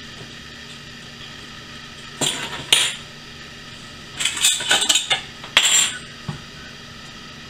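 Cutlery and dishes clattering in short bursts: metal knife and fork clinking and being set down, then china plates being handled, with a denser run of clinks about four to six seconds in.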